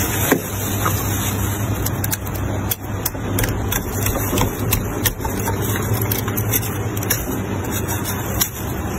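White plastic spoon scraping and chipping frost off the inside wall of a chest freezer, giving scattered short scratchy ticks, with a red plastic bag crinkling against the frost. Under it runs a steady low hum.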